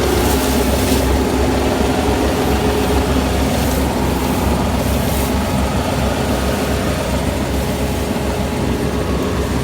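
Kubota ER470 combine harvester running steadily while harvesting rice: a constant engine drone with the hum and rush of the harvesting machinery.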